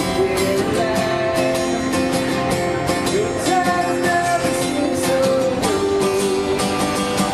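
Acoustic guitar strumming steadily under a sung melody of long held notes that slide between pitches.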